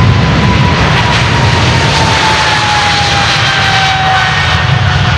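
Boeing 777-300ER's twin GE90-115B turbofans at takeoff power as the jet rolls past on its takeoff run: a loud, steady rumbling roar with a whine that falls slowly in pitch as the aircraft goes by.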